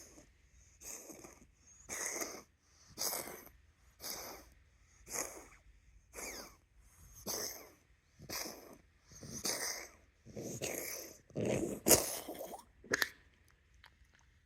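A dog having a reverse-sneezing (reverse coughing) fit: a run of about a dozen short, forceful breaths, roughly one a second, the loudest near the end, then it stops.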